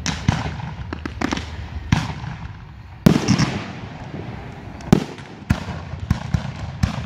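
Aerial fireworks shells bursting in a string of sharp bangs at irregular intervals. The loudest comes about three seconds in and another strong one about five seconds in, each trailing off.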